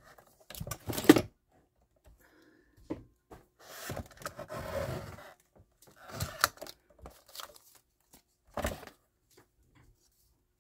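Sliding paper trimmer cutting a folded book page: a few sharp knocks and clacks as the paper and the cutter head are set in place, a longer scraping stretch as the blade runs along the rail near the middle, and more knocks and paper handling near the end.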